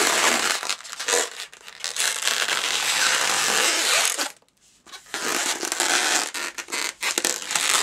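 Two inflated latex modelling balloons rubbing against each other and against the hands as they are twisted together. The rubbing stops for about half a second a little past halfway, then starts again in short scratchy strokes.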